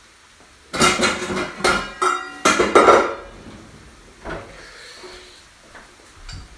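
Metal pots and pans clanking and ringing against each other as a cooking pot is taken out of a kitchen drawer: a run of loud clatters in the first three seconds, then a few softer knocks.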